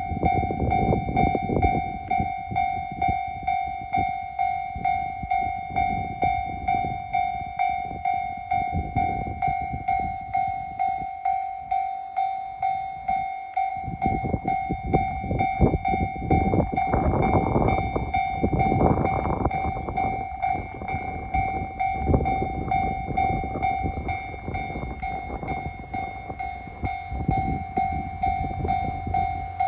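Railway level crossing warning bell sounding, an electronic ding repeating rapidly and evenly, with the low rumble of an approaching diesel-hauled freight train underneath that fades for a few seconds and then builds again.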